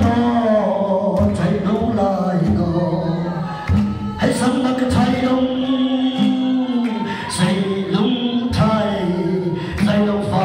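Church congregation singing a Mizo spiritual song (thlarau lam zai) together in long held notes, over a steady beat about every second and a quarter.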